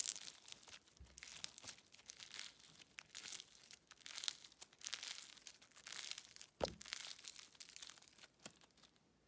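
Crispy white glue bingsu slime being played with by hand: a faint run of irregular crackles and small pops, with one fuller pop near the end.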